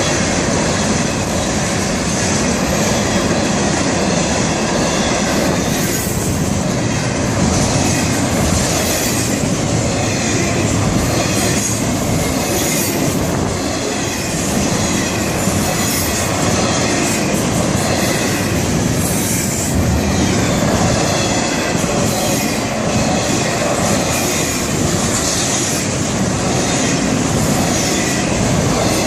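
Florida East Coast Railway freight train passing close by: a steady, loud rolling rumble of steel wheels on rail, with repeated clicks as the wheels cross rail joints.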